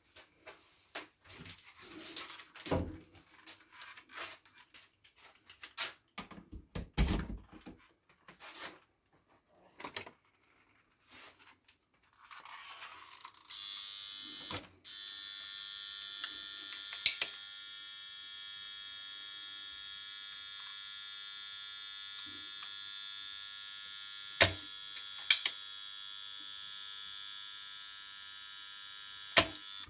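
Clicks and knocks of parts being handled, then about 13 seconds in a small electric tool motor starts and runs steadily at a high pitch, with a few sharp clicks over it.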